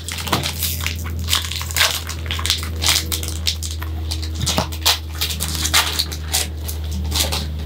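Crinkling and crackling of foil trading-card pack wrappers and plastic card sleeves being handled: an irregular run of small crackles and rustles over a steady low hum.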